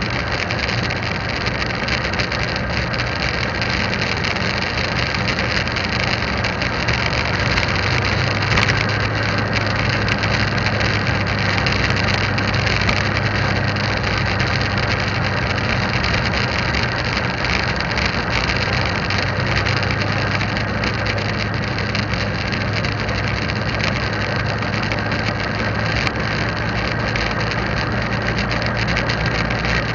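Motorcycle engine running steadily while riding, under dense wind and road noise, with many small clicks, as picked up by a camera mounted on the bike.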